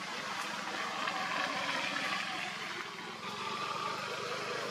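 A motor vehicle's engine running nearby as a steady drone that swells and eases.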